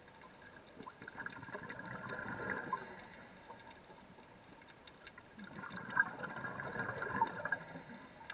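Underwater recording of a scuba diver's exhaled bubbles gurgling past the camera twice, each burst about two seconds long, with quieter water noise in between.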